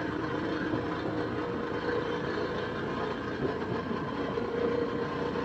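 Motorcycle engine running steadily on the move, with an even rushing noise underneath.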